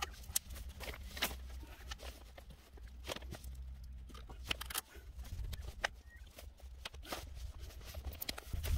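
Irregular sharp clicks and handling noises as plastic cable ties are threaded and pulled tight around a water pump under a vehicle's water tank, over a steady low rumble.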